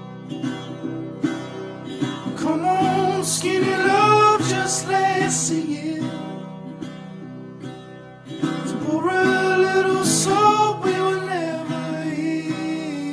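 Background song: acoustic guitar picking under a singing voice, which comes in with two sung phrases, one about two and a half seconds in and another about eight and a half seconds in.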